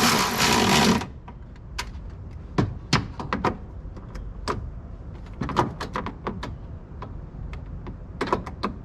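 A cordless power tool motor runs and cuts off abruptly about a second in. It is followed by scattered light clicks and knocks of tools and metal parts being handled.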